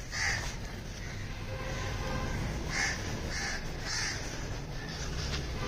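Crows cawing: a few short caws, three of them in quick succession about half a second apart in the middle.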